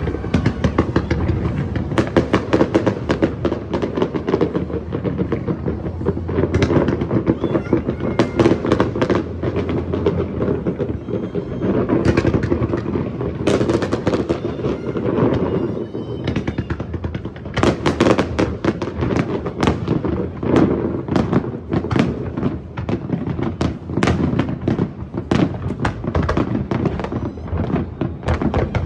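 Fireworks display: a rapid, continuous barrage of bangs and crackles over a steady low rumble.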